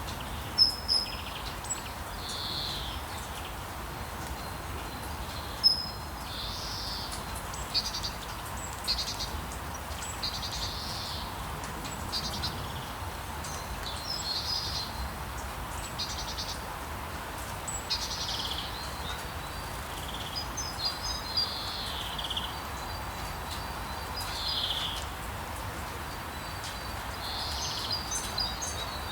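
Birds singing short, falling chirps every second or two over a steady hiss of rain, with a low rumble of town noise underneath. A few sharp taps stand out above the rain.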